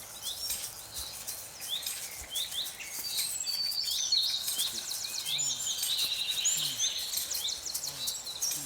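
Several wild birds singing and calling at once: a dense chorus of quick, high chirps and trills, busiest in the middle.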